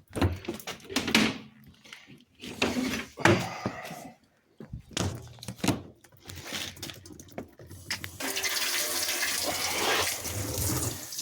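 Irregular knocks and rubbing from handling, then about eight seconds in water starts running steadily, rinsing the bleached washing machine door seal.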